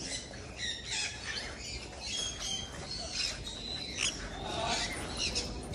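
Sun conures squawking: a flock giving many short, high-pitched calls, one after another.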